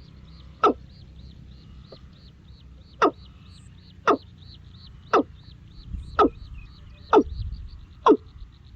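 An animal calling with short, sharp cries repeated roughly once a second, each dropping steeply in pitch. Behind them runs a steady high-pitched chirping that pulses about four times a second.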